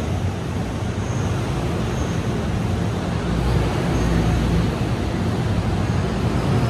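Train running, a steady low rumble that grows a little louder about halfway through.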